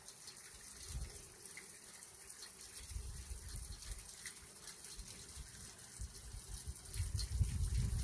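Steady rush of a mountain stream, water splashing and falling, with low rumbles a few times, the loudest near the end.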